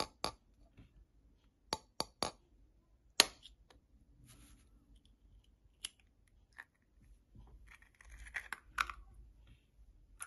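A knife blade tapping against a raw eggshell: a string of sharp clicks, the loudest about three seconds in. Near the end comes the crackle of the cracked shell being pulled apart by hand.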